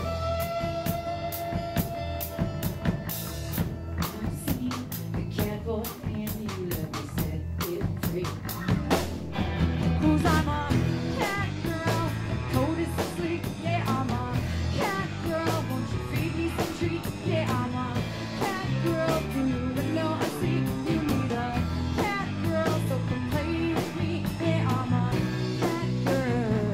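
Live rock band playing, with electric and acoustic guitars over an electric bass and a drum kit keeping a steady beat.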